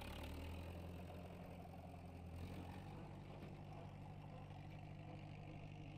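Farm tractor engine running as the tractor drives slowly across grass, a faint steady low hum whose pitch shifts upward about three seconds in.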